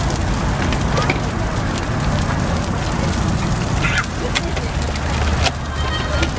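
Hamburger patties with cheese sizzling on a hot flat-top griddle: a steady hiss with scattered pops of grease, over a low steady rumble.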